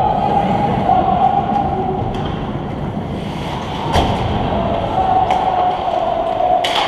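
Ice hockey play heard from the stands of an indoor rink: skates and sticks on the ice with scattered clicks over a steady drone. There is one sharp knock about four seconds in and a brief hiss near the end.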